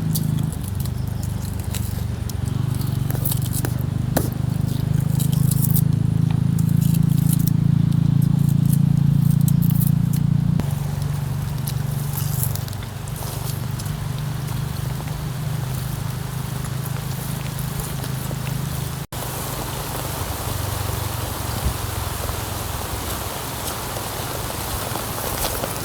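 Rain falling with crackling and rustling. A low steady rumble dominates the first ten seconds or so, and from about two-thirds of the way through an even rain hiss takes over.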